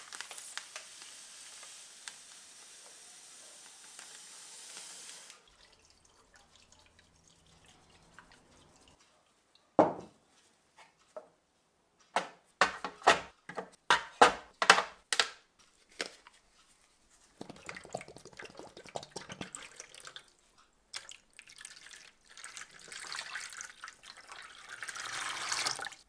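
Water running for about five seconds and stopping suddenly. After a quiet stretch comes one sharp knock, then a quick run of about a dozen sharp clicks or taps, and more noise of handling near the end.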